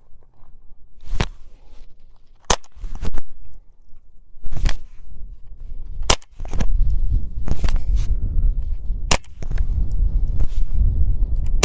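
GSG-15 .22 LR semi-automatic carbine firing single shots one at a time, spaced one to three seconds apart. A low rumbling noise fills the second half.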